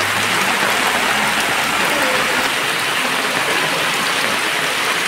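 Steady heavy rain falling on floodwater, an even hiss.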